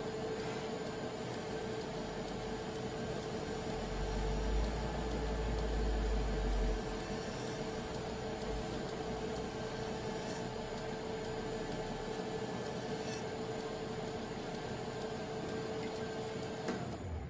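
A workshop machine running steadily, giving an even whirring noise over a constant hum. A deeper rumble swells for a few seconds near the start, and the sound stops abruptly near the end.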